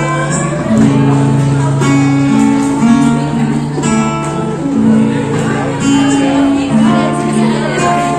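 Live acoustic duo played through a small PA: a strummed acoustic guitar accompanying a woman singing into a microphone.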